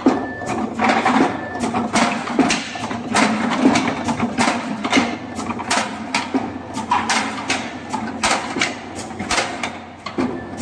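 Automatic cylindrical lithium-cell sorting machine running while barcode-scanning and sorting cells: its pneumatic cylinders and mechanism clack and knock in an irregular series, about three a second, over a low hum. Two short beeps sound in the first two seconds.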